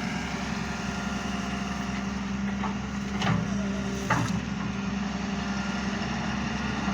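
Engine running steadily, with two short knocks about three and four seconds in.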